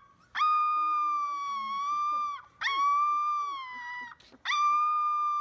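A puppy howling: three long, high howls, each rising quickly at the start and then held for one to two seconds, with short breaks between them.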